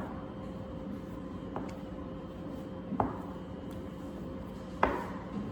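A few short knocks on a kitchen work surface, a second or two apart, as dough is divided and handled, over a steady background hum.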